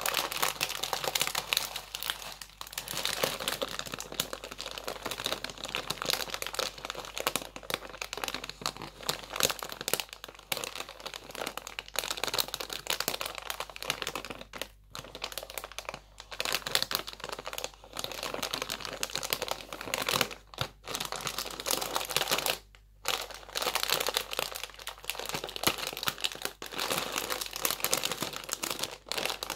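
Walkers crisp packet crinkling and crackling as leather-gloved hands squeeze and crumple it, stopping briefly twice, about halfway and about two-thirds of the way through.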